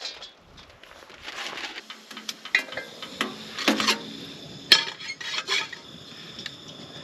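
Metal camp gear being handled: a run of clinks and clanks, the loudest about two-thirds of the way through, followed by a faint lingering ring.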